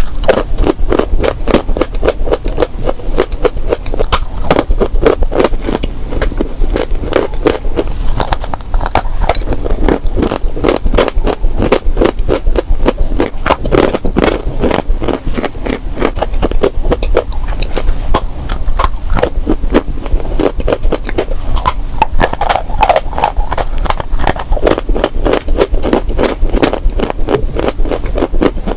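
Close-miked crunching of crunchy clay, most likely being bitten and chewed: a steady stream of crisp crunches, several a second.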